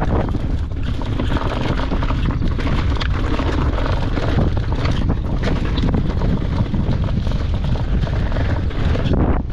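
Wind buffeting the microphone of a camera mounted on a mountain bike, with a steady low rumble and a constant rattle and clatter of the tyres and bike over loose stones on a fast descent.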